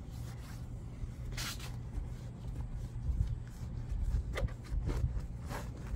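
Microfiber towel rubbing across car window glass, wiping the sprayed glass cleaner dry in several separate strokes.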